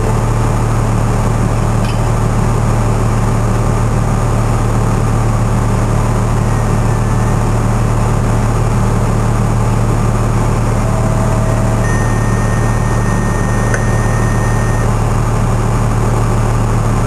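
A vehicle engine idling steadily with a constant low hum, heard from inside the cab.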